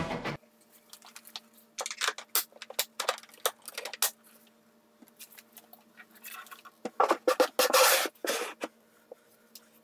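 A plywood cabinet door and drawer being handled: a run of sharp clicks and wooden knocks as the door is worked, then a drawer sliding out with a short rush of rubbing and more knocks, over a faint steady hum. A burst of rock guitar music cuts off just at the start.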